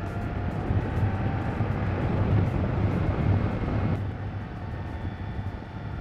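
Kawasaki Versys 300 parallel-twin engine running while riding, mixed with wind and road noise. The sound swells a couple of seconds in and eases off about four seconds in.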